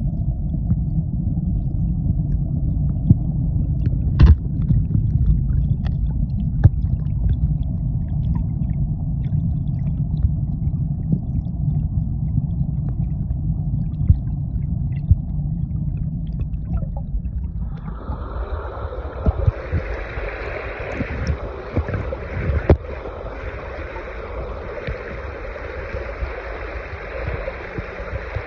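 Spring-fed stream water heard with the microphone underwater: a muffled low rumble with scattered clicks, one sharp knock about four seconds in. About two-thirds of the way through it switches abruptly to the open hiss of fast, shallow stream water as the phone comes up to the surface.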